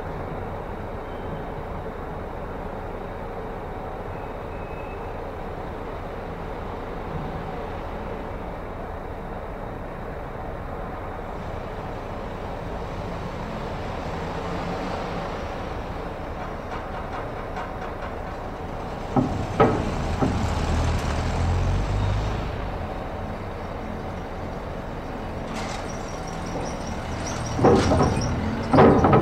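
A ship docking, its engines and machinery rumbling low and steady. About twenty seconds in, and again near the end, come loud clanks and thuds with a surge of rumble, as cars are driven off over the ramp.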